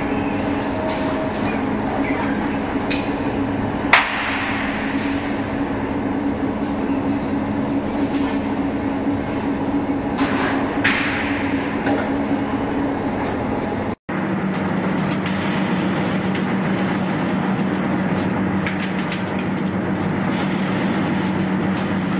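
Two-roll rubber mixing mill and its feed conveyor running with a steady mechanical hum, broken by a few sharp clanks, the loudest about 4 s in. About 14 s in the sound cuts off briefly and a different steady hum follows, from a mill turning a sheet of rubber around its rolls.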